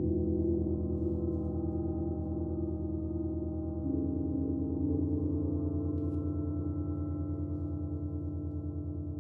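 Gongs ringing in a long, sustained wash of overlapping low tones that pulse as they beat against each other. The sound swells again with a new stroke about four seconds in.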